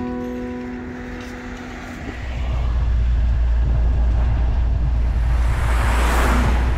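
The last plucked guitar notes fade, then the steady low rumble of a camper van driving takes over, heard from inside the cab. About two-thirds of the way through, an oncoming car passes with a rising and falling whoosh.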